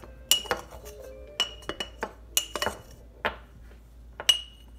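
A metal spoon clinking against the inside of a glass mason jar while stirring a dry powder: about eight irregular clinks, each with a brief ringing tone.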